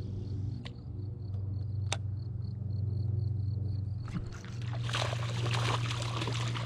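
Water splashing and sloshing from about four and a half seconds in, over a steady low hum. Before that come a few sharp clicks and a faint, fast high ticking.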